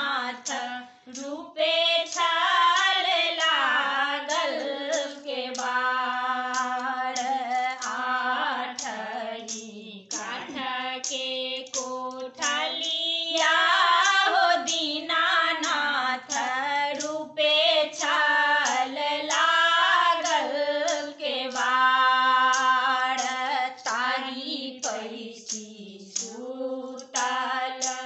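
Three women singing a Maithili Chhath folk song together in long, slow phrases with brief pauses for breath between lines.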